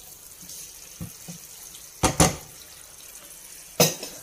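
Minced pork and broth simmering in a pan on a gas stove, a steady soft hiss. Sharp knocks break in about a second in, twice in quick succession about two seconds in, and once more near the end.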